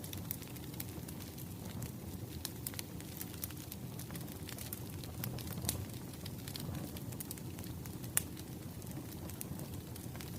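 Wood fire crackling: irregular sharp pops and snaps over a steady low rumble of burning logs.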